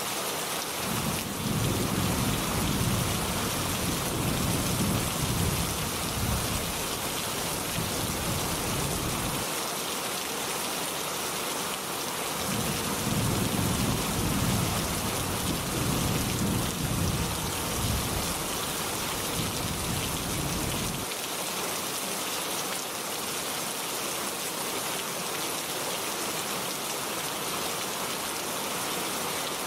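Steady rain hissing, with two long rolls of thunder rumbling low beneath it. The first starts about a second in, the second about twelve seconds in, and each lasts some eight seconds.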